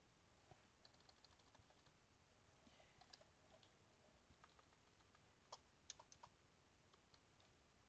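Faint clicking of computer keyboard keys typing a file name, a few scattered keystrokes with the clearest ones about five and a half to six and a half seconds in, over near silence.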